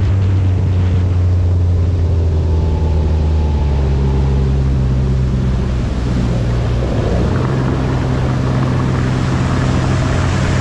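Mercury Pro XS outboard motor running at speed on a speedboat, a steady engine note over the rush of water from the hull and wake. The engine note shifts slightly about six to seven seconds in as the boat turns.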